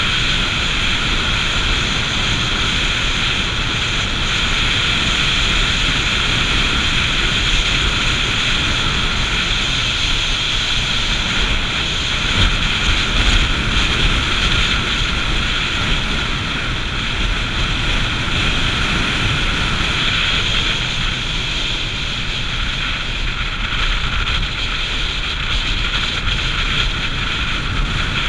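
Motorcycle riding at a steady cruising speed: a constant rush of wind over the microphone with the engine running underneath.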